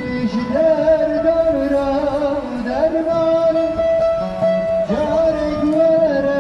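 Live street performance: a man singing long held notes that slide between pitches, accompanied by a bağlama (long-necked Turkish lute) plucked beneath, amplified through a small portable speaker.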